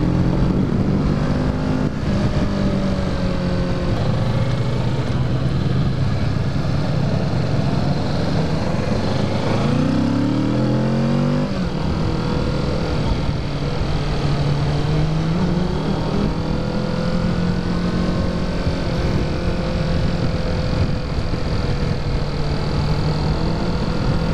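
2017 Kawasaki Ninja 650's parallel-twin engine with its stock exhaust running under way, over constant wind rush on the bike-mounted microphone. About ten seconds in the revs climb quickly, then fall away abruptly, and the engine settles to a steadier, gently rising and falling note.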